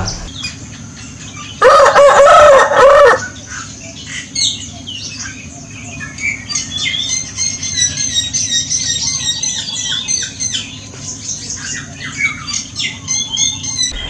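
A rooster crows once, loudly, about two seconds in. Through the second half, many small birds chirp and twitter in a busy chorus of high calls over a steady low hum.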